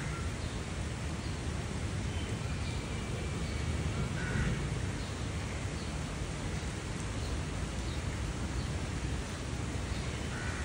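Steady hiss of heavy rain falling on floodwater and trees, with a crow cawing three times: at the start, about four seconds in, and at the end.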